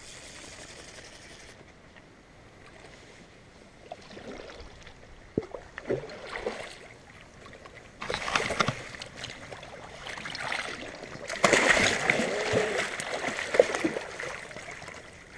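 Splashing and sloshing in shallow river water as a hooked coho salmon thrashes at the surface and waders move through the water. It begins about four seconds in, with louder spells around eight seconds and again near twelve seconds.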